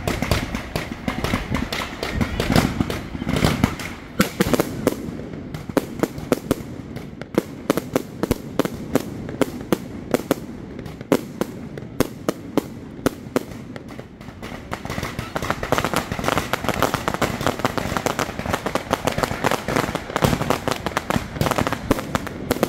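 Fireworks display: a dense, continuous run of sharp bangs and crackling as aerial shells and rising comets burst overhead, with a low rumble under it.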